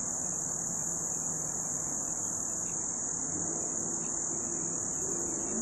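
Steady high-pitched insect chorus, like crickets trilling without a break. A faint low vehicle drone comes in during the second half.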